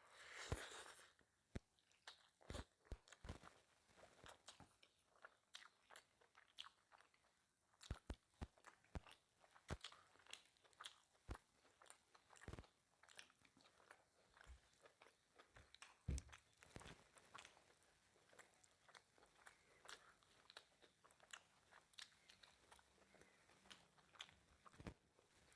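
Close-miked chewing and eating of mutton curry and rice: irregular wet mouth clicks and crunchy bites scattered throughout, with a brief rustling burst at the start.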